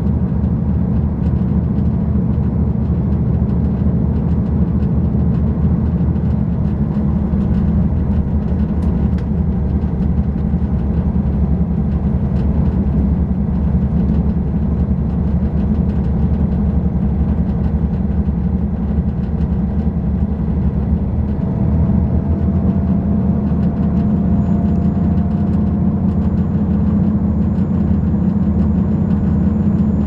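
Interior noise of a diesel multiple-unit express train running at speed: a steady rumble from the engine and the wheels on the rails. A faint whine rises slightly about two-thirds of the way through.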